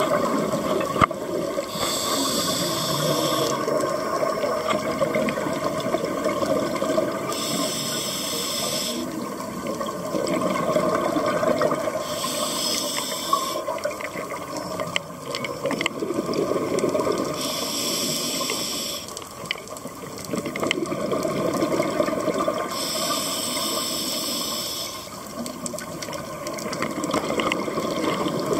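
Scuba diver breathing through a regulator underwater: five hissing inhalations, about one every five seconds, each followed by a longer rush of exhaled bubbles.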